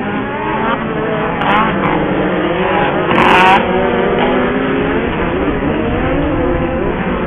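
Engines of several off-road racing buggies revving and passing, their pitch rising and falling as they accelerate and lift. A brief, louder rushing burst comes about three seconds in.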